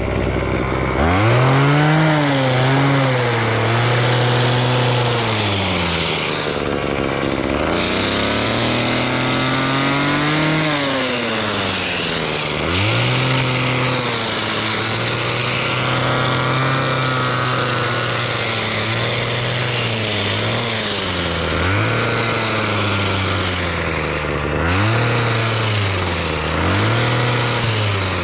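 Small gas engine of a Craftsman handheld pole tool revving up and easing back toward idle again and again as the throttle is worked, the revs rising and falling more often near the end.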